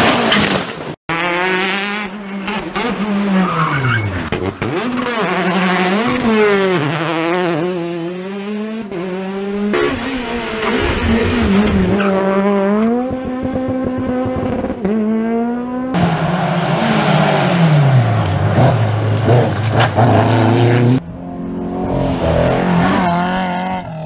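Rally cars driven hard on a tarmac stage, several in turn: engines revving high, pitch climbing through the gears and dropping on lifts and downshifts, with some tyre squeal and skidding in the corners.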